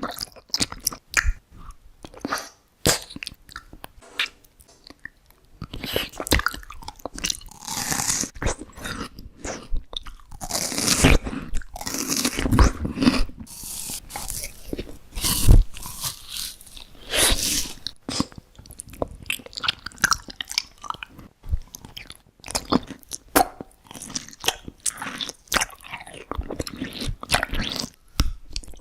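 Close-up eating sounds: a person biting and chewing crunchy food, with irregular crackling crunches and a few louder bites along the way.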